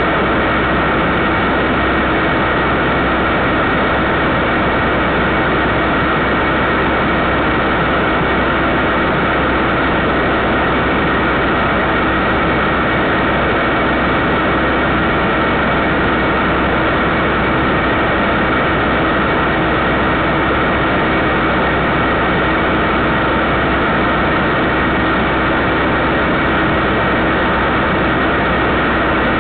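Steady hiss with a few faint unchanging tones, constant in level throughout: electrical noise from a security camera recording's audio channel rather than any sound from the scene.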